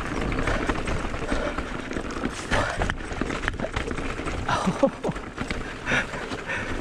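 Mountain bike riding fast down a rough dirt singletrack: tyres rolling and crunching over dirt and stones, with irregular knocks and rattles from the bike over bumps and a steady rumble of wind on the microphone.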